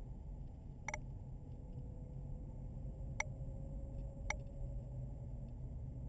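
Steady low rumble of a car's engine and tyres heard from inside the cabin while driving, with three sharp clicks about one, three and four and a half seconds in.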